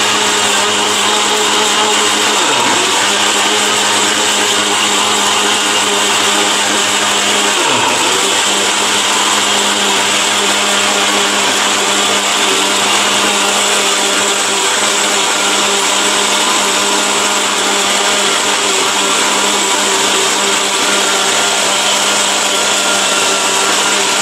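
Orpat 1600-watt steel-bush blender with a copper motor, rated 22,000 rpm, running steadily and grinding ginger with a little water into paste. Its pitch dips briefly twice in the first eight seconds.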